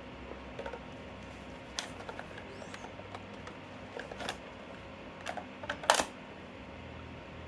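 Scattered small clicks and taps from handling a burger and its packaging, the sharpest about six seconds in, over a low steady hum.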